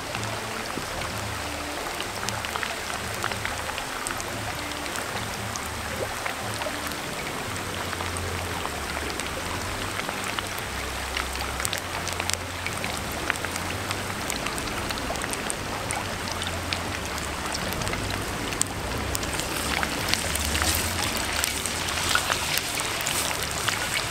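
Flour-battered chicken pieces deep-frying in hot oil in a cast-iron skillet: a steady, dense sizzle with scattered crackles and pops. The crackling gets busier near the end, as a wooden spatula stirs and separates the pieces.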